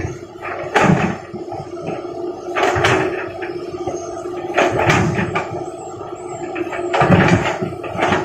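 Stones knocking and thudding as they are dropped into a dump truck's bed in groups about every two seconds, over a steady machine hum.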